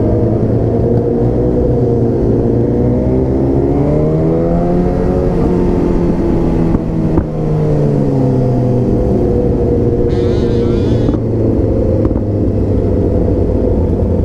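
Motorcycle engine heard from a helmet-mounted camera while riding, under heavy wind rumble on the microphone. Its pitch rises and falls as the bike speeds up and slows. A short high wavering sound comes in about ten seconds in.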